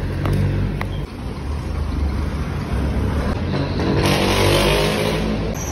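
Road traffic: a motor vehicle's engine rumbling steadily, with a louder rush as a vehicle passes about four seconds in.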